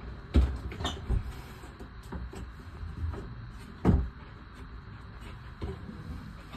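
A few sharp knocks and thumps, the loudest about half a second and four seconds in, over a steady low rumble.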